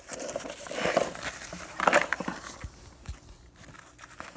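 Nylon fabric of a backpack rustling and scraping as it is handled and packed, with louder rustles about one and two seconds in, then quieter.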